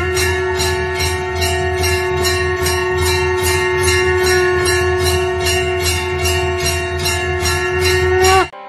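Music with a jingling bell-like beat of about three strikes a second over a long held note and a steady low bass. It cuts off suddenly near the end, and quieter music begins.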